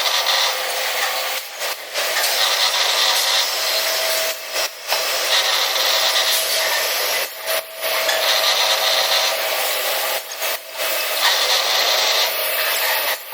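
Insert drill on a CNC drilling machine cutting into metal: a steady scraping, grinding noise broken by short pauses about every three seconds, as one drilling cycle follows another.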